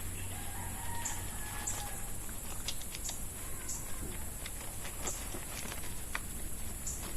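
A rooster crows once in the distance, a faint drawn-out call about a second long. A steady high-pitched hiss and a few faint clicks and short chirps run underneath.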